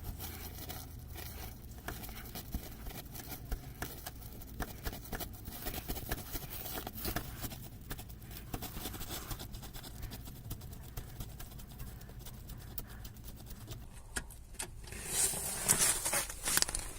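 A hand wrench turning out the anti-roll bar bushing clamp bolt on a VW Golf 4: a long run of small metallic clicks and ticks, with a louder scraping rustle near the end.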